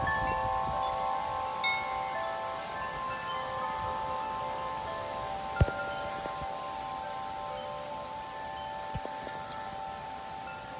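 Metal tube wind chimes ringing in the wind, several notes held together and slowly fading, with a few faint new strikes and one sharp click a little past halfway. Steady rain hiss underneath.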